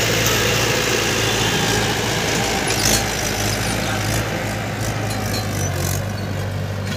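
Tractor diesel engine idling steadily, a low even hum whose pitch shifts slightly near the end.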